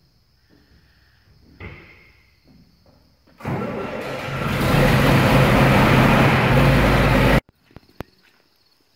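A loud machine starts up about three seconds in and runs as a steady roar with a low hum underneath. It grows louder about a second later, then cuts off suddenly. A few faint knocks come before it.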